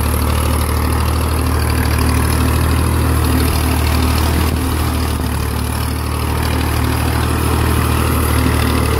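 Massey Ferguson 240 tractor's three-cylinder diesel engine running steadily at raised throttle, under load from a heavily loaded sugarcane trolley, growing a little louder near the end as the tractor comes close.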